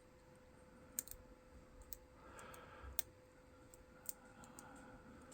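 A handful of faint, sharp clicks, spread irregularly: a lock pick and tension wrench working the pins inside a Master Lock padlock's keyway.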